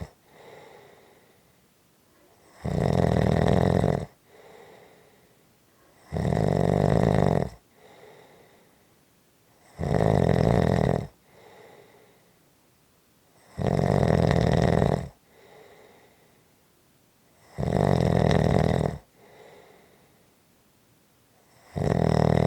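Steady, regular snoring: six loud, rasping snores about every three to four seconds, each lasting over a second and followed by a much fainter breath sound.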